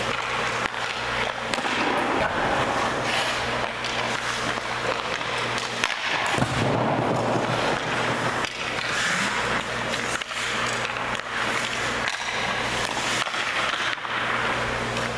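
Ice skate blades scraping and carving on the ice as a hockey goalie pushes and slides across the crease, with a few sharp knocks about six seconds in. A steady low hum runs underneath.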